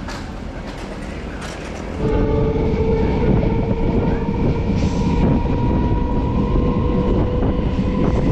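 MEMU electric passenger train running along the track, with rumbling wheel and rail noise. About two seconds in it gets much louder and a steady high tone sounds over it.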